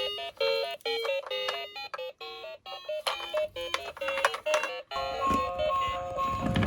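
Electronic background music: a quick, bouncy melody of beeping notes. About five seconds in, the melody gives way to a held, pulsing tone over a rising rush of noise.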